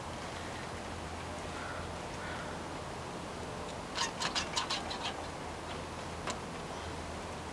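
Pump-style suction cup being pumped onto window glass: a quick run of about seven sharp clicks about four seconds in, then one more click a second later.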